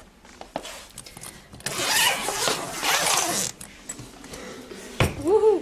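Zipper of a suitcase being pulled open with a long rasping sound, in two pulls about two seconds in.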